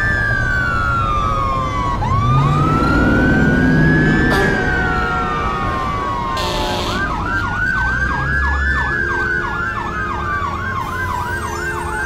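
Emergency-vehicle siren: a slow wail rising and falling in pitch, switching about seven seconds in to a fast yelp that warbles about two and a half times a second.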